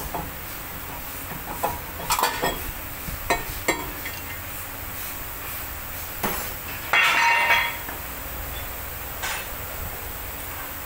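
Metal clinks and knocks as a Toyota Land Cruiser's front brake rotor disc is worked off the wheel hub, with a louder, ringing metallic clatter about seven seconds in.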